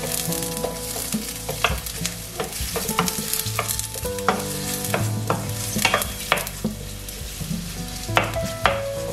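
Sliced onions sizzling in hot oil in a stainless steel wok, stirred with a wooden spatula that knocks and scrapes against the pan in irregular sharp clicks.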